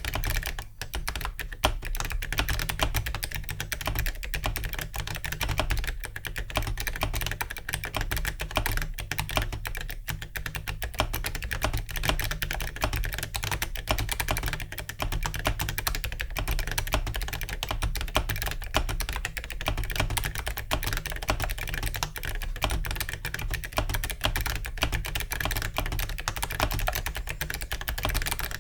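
Continuous, fast typing on a mechanical keyboard fitted with ZealPC Clickiez switches and Awekeys metal keycaps, a dense, unbroken stream of key clicks and clacks.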